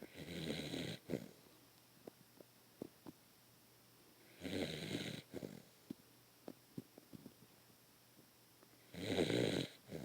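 Sleeping beagle snoring: three snores, each about a second long and about four and a half seconds apart, with faint small clicks in between.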